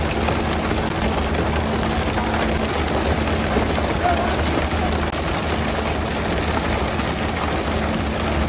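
Fishing boat's engine running steadily with a low hum, under a constant hiss of splashing water churned up beside the hull.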